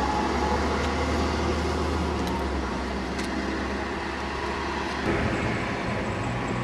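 Double-decker bus engine running as the bus pulls away, with road traffic noise. About five seconds in the sound changes suddenly to a different engine note as a car and a single-decker bus approach.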